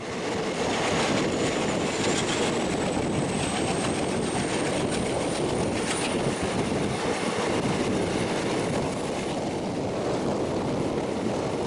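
Passenger train running at speed, heard from an open coach door: a steady rush of wheel-on-rail noise and wind, with a faint high whistle that rises slowly in pitch over the first half.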